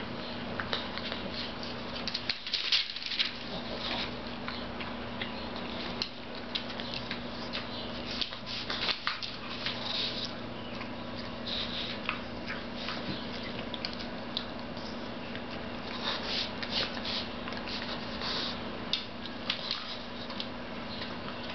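A pug eating wet food off a paper plate: irregular wet chewing, smacking and licking, with crackles as its face pushes the plate across the newspaper beneath.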